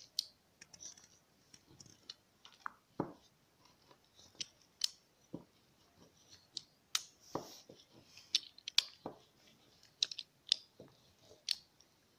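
Kitchen scissors snipping into a roll of soft dough: faint, short clicks of the blades closing, irregular, roughly one a second.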